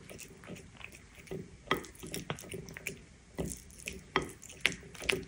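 Bengal cat eating wet food from a plate: irregular wet smacking and chewing clicks, with several sharper smacks in the second half.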